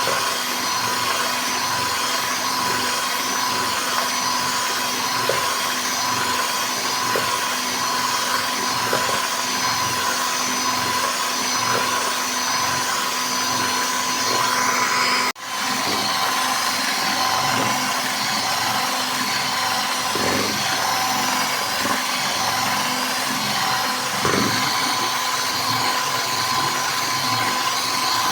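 Electric kitchen mixer running steadily with a constant whine, mixing cake batter. It drops out abruptly for an instant about halfway through, then runs on.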